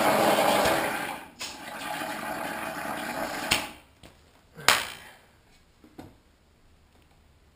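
Compressed air hissing from a blow-gun nozzle held to an upturned motorcycle fork tube, pushing the old fork oil out into a jar, in two long blasts with a brief break between them. The second blast ends in a sharp knock, and another knock follows about a second later.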